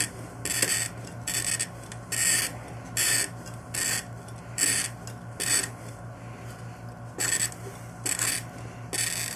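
A glass cutter wheel scores a glass bottle as a drill turns it in a jig. It makes a scratchy hiss that pulses about once every 0.8 s, with a brief pause a little past the middle, over a steady low hum. The cutter is pressed hard, cutting a deeper score line than usual.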